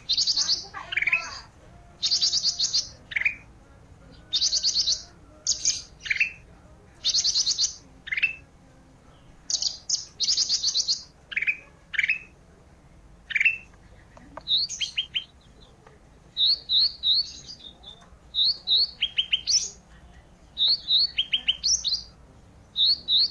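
A Sunda bush warbler (the 'ranting' of Indonesian bird keepers) singing vigorously: phrases of rapid, high trills, each often ending in a short down-slurred lower note, with short pauses between. About halfway through the song changes to quicker runs of short clipped notes.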